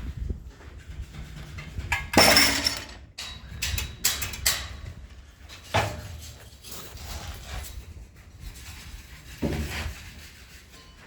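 A few loud knocks and scraping clatters, the loudest about two seconds in, with fainter ones later, over a low steady rumble.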